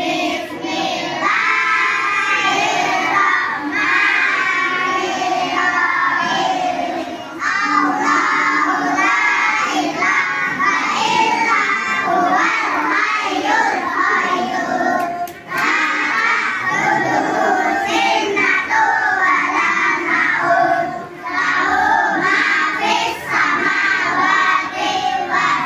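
A group of young children singing together in unison, with brief pauses between lines.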